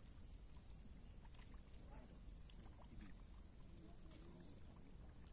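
Near silence: faint outdoor background with a steady, thin high-pitched tone that drops away near the end, and faint distant voices.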